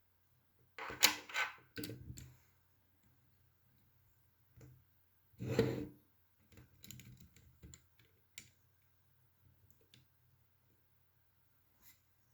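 Plastic Lego pieces clicking and rattling as they are handled and pressed together, in short clattery bursts with the loudest about a second in and around five and a half seconds in, and scattered light clicks between.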